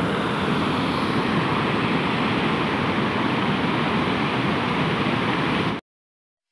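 Water rushing steadily over a dam's concrete spillway, cutting off abruptly near the end.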